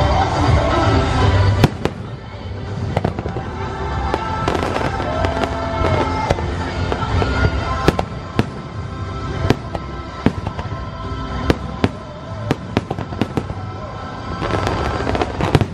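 Fireworks display: a string of sharp bangs and crackling pops from aerial shells bursting, with music playing underneath. The music is loud for about the first second and a half, ending with a loud bang, then sits lower under the bursts and swells again near the end.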